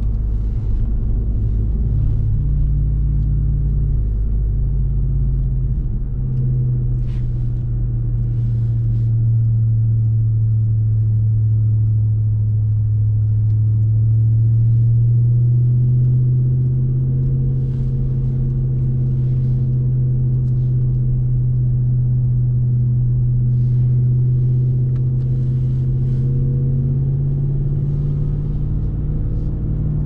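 2021 Ram 1500 TRX's supercharged 6.2-litre Hemi V8 pickup under way at a steady cruise, a deep steady drone whose pitch shifts a little up and down a few times with speed.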